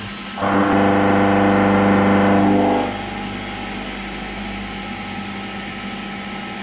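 CNC vertical milling machine running its program. From about half a second in until near three seconds there is a loud, pitched whine while the cutter works the part; after that comes a steadier, quieter machine hum.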